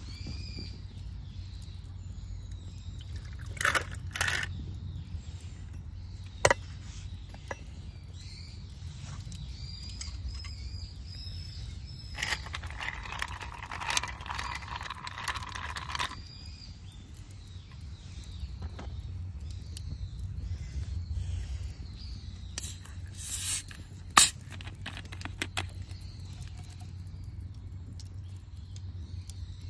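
A whisky highball being made over ice beside a crackling campfire. There are clinks of glass and ice, a liquid pouring into the glass for a few seconds partway through, a brief hiss and a sharp click about two-thirds through as a bottle of carbonated water is opened, and the soda starting to pour near the end.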